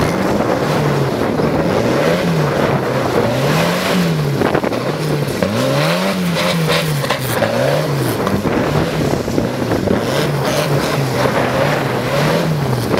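Souped-up old farm tractor's engine being revved up and down over and over, about once every second or two, as the tractor is driven hard.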